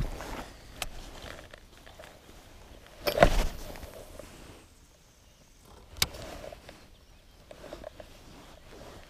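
Fishing gear handled in a kayak: a loud knock about three seconds in and a sharp click about six seconds in, with smaller clicks and rustles around them, as a spinning rod and reel are picked up and worked.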